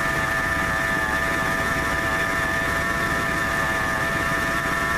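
1997 Ford F-150 engine idling with a steady high-pitched whine from the belt-driven accessories. The owner takes the whine to be a bearing going bad in the idler pulley, the one pulley that reads hot.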